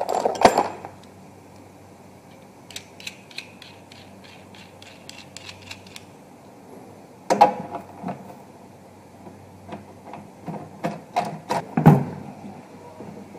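Caster wheels being fitted to a stainless-steel induction sealer housing: a run of light rapid clicks as a caster is screwed in, then a series of knocks and clunks as the metal housing and its casters are tipped and set on a tile floor, the loudest near the end.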